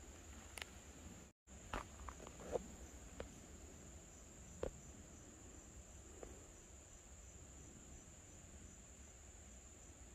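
Steady high-pitched drone of an insect chorus in summer woodland, with a few soft footsteps on dirt and dry leaf litter in the first half. The sound drops out completely for a moment about a second and a half in.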